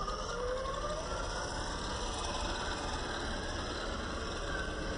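Traxxas TRX-4 RC crawler's electric motor and geared drivetrain whining, the pitch gliding up and down with the throttle, over a steady hiss.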